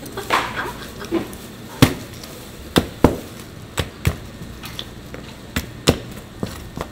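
Heavy cleaver chopping braised pig's trotters on a cutting board: about nine sharp chops, often two in quick succession, with a pause between pairs.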